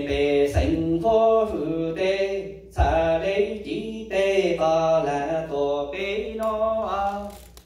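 A man chanting txiv xaiv, the Hmong funeral lament, into a handheld microphone: long melodic phrases of held, bending notes, with a short breath break about three seconds in.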